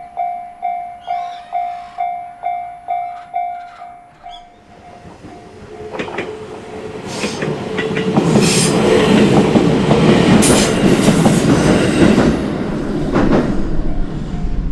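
Japanese level-crossing alarm bell ringing in evenly spaced strikes, about three a second, then stopping about four seconds in. A JR Minobu Line train then comes up and passes over the crossing, its wheels clattering over the rail joints, loudest in the middle and easing near the end.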